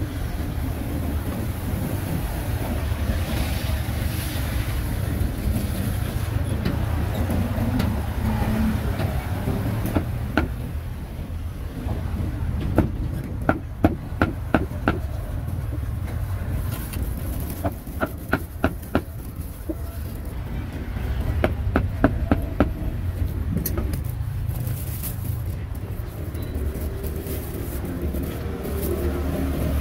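Steady street traffic rumble, broken by several short bursts of quick, sharp knocks.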